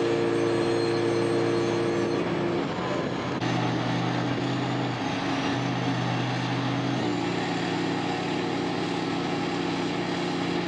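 Hooklift truck engine running at raised revs to drive the hydraulics as the hook arm lowers a roll-off container onto the trailer. Its steady hum drops to a lower pitch about two and a half seconds in, then runs on steadily.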